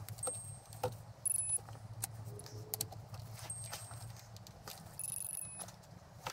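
A digital angle torque wrench turning cylinder head bolts with the ratchet clicking and the socket knocking on the bolts. The wrench gives two short electronic beeps, about a second in and again about five seconds in, signalling the set 90-degree turn.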